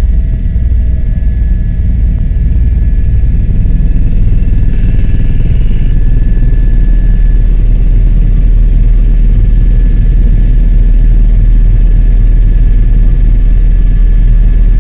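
Helicopter cabin noise in flight: a loud, steady low rumble of the rotor and engine with a thin, steady high whine above it.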